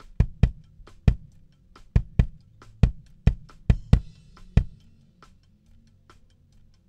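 Raw, unprocessed live recording of a 20-inch kick drum, miked with a Shure Beta 91 inside the drum: about a dozen deep kick hits in an irregular pattern, thinning out and getting softer in the last two seconds. Faint bleed from the rest of the drum kit sits between the kicks.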